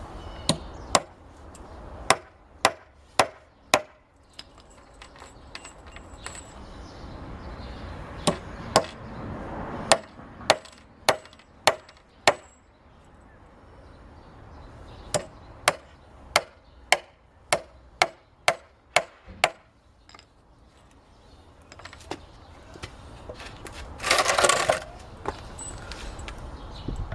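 Hammer blows on wood in three runs of about two strikes a second, as nails are driven into stair lumber. Near the end comes a short noisy burst of about a second.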